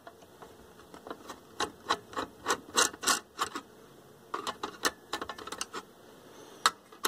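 Screwdriver turning out a small screw that holds a receiver's metal lamp housing: a run of light, irregular clicks and ticks, with one sharper click near the end.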